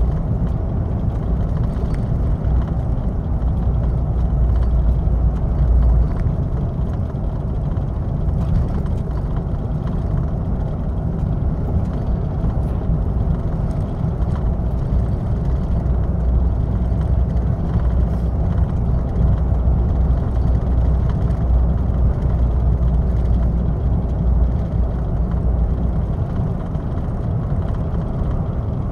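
Heavy truck driving at steady speed, heard from inside the cab: a constant low engine drone with tyre and road noise. The deepest rumble eases for several seconds about a fifth of the way in, then comes back.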